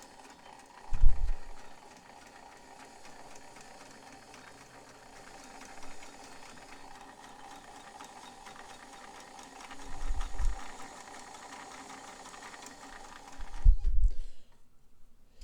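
White Model 510 sewing machine running steadily as it sews a long straight stitch, with a growling sound that the owner thinks may come from its rubber timing belt. Low thumps come about a second in, around ten seconds, and near the end, and the machine stops shortly before the end.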